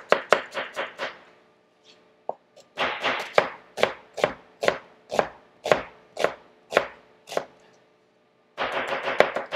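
Chef's knife chopping an onion on a plastic cutting board: a short run of quick strokes, a pause, then an even run of about three strokes a second, and a faster run near the end.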